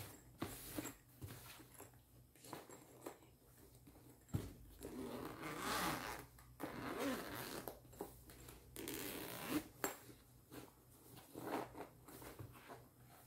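Zipper of a hard-shell EVA camera carrying case being drawn open around the case in several long pulls, with knocks and rubbing as the case is handled and turned.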